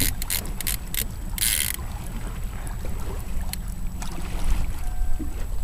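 Wind rumbling on the microphone over choppy water around a small boat, with a few quick clicks and knocks and a short rush of hiss about a second and a half in.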